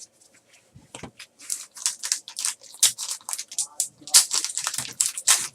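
Trading card pack wrappers crinkling and tearing as Panini Prizm baseball packs are opened and the cards handled: a run of irregular quick crackles and rustles that starts about a second in and gets busier toward the end.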